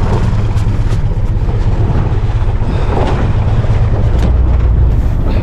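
Car engine held at full throttle with a steady low rumble, its drive wheels spinning for grip on a slippery hill and flinging gravel, heard as a rough clatter of small hits over the engine.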